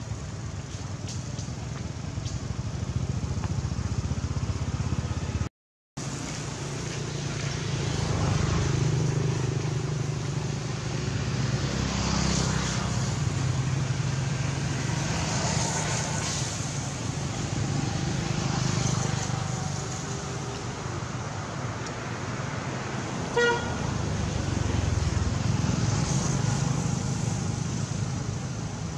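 Road traffic: a steady low engine rumble that swells as vehicles pass. Later on, one short horn toot stands out as the loudest sound. The sound cuts out completely for about half a second near the start.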